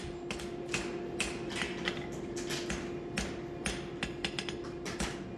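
Light, irregular metallic taps of a farrier's hammer working a hot steel horseshoe at the anvil while shaping the heel calks, over a steady low hum.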